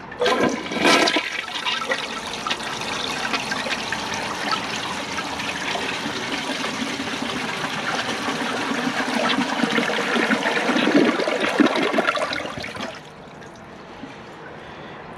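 2001 Kohler Wellworth Ingenium toilet flushing with its siphon jet blocked off: a loud surge as the flush starts, rushing water for about thirteen seconds, then a quieter flow as the bowl empties and refills. Even with the jet blocked the flush clears normally.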